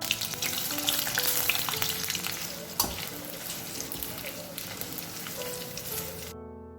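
Paneer cubes sizzling as they shallow-fry in hot sesame oil in a pan: a dense crackling hiss with scattered sharp pops and clicks, cutting off suddenly near the end, after which only soft piano music remains.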